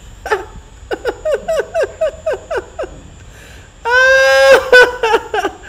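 A man laughing hard: a quick run of short, falling "ha" pulses, about four a second, then about four seconds in a loud, high-pitched held squeal of laughter, the loudest part, breaking off into a few more pulses.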